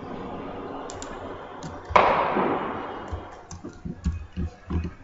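Computer keyboard typing in scattered clicks and taps, with a sudden loud bang about two seconds in that fades over about a second.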